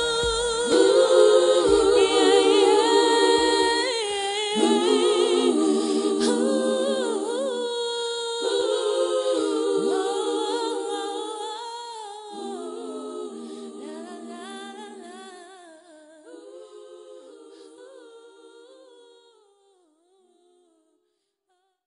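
Unaccompanied vocal music: several voices singing and humming together in harmony, fading out gradually to silence near the end.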